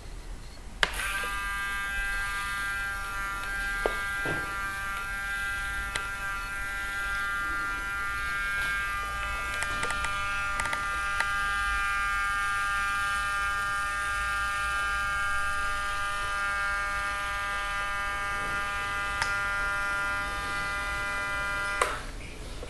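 Small electric winch motor of an RC model raft running steadily with a constant-pitch whine as it works the square sail on the mast. It starts with a click about a second in and cuts off with a click near the end, the reed-contact auto-stop switching the motor off at the end of its travel.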